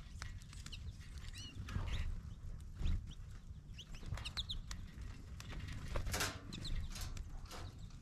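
Downy woodpecker pecking at peanuts through the wire mesh of a feeder: a run of irregular sharp taps, with a few short, high chirps from small birds in between.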